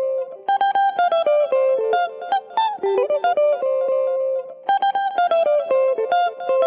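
Background music: a solo plucked guitar playing a quick, bright melody of single notes, the phrase starting over near the end.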